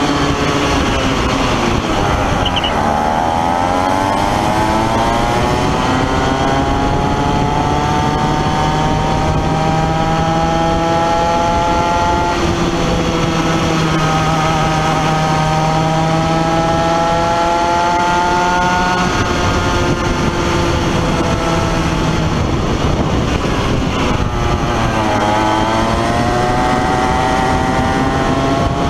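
Comer two-stroke Kid Kart engine racing, heard from on board: the revs drop into a corner a couple of seconds in, climb slowly down the straight and hold, then drop again near the end and pick up once more.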